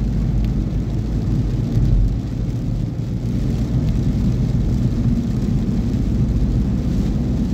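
Steady low rumble of a car driving on a rain-soaked road, heard from inside the cabin: engine and tyres on wet asphalt.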